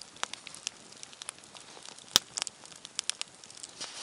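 Small wood campfire crackling, with scattered sharp pops; the loudest pop comes about two seconds in.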